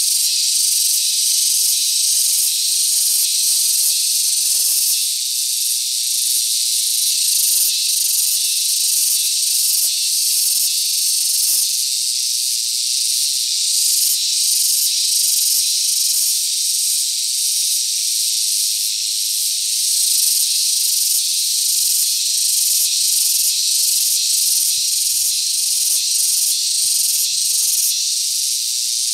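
Dense chorus of insects such as cicadas or crickets: a loud, steady, high-pitched hissing buzz with a fine rapid pulse.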